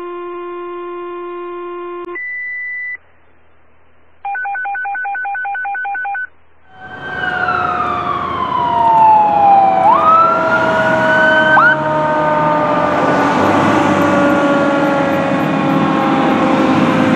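Electronic alert tones: a long steady tone, a short higher tone, then a fast-pulsing two-pitch beep, the kind of tone alert that dispatches a fire company. About seven seconds in, a fire engine's sirens start up loud, one sweeping down in pitch and back up, with several slowly falling siren tones layered over the truck.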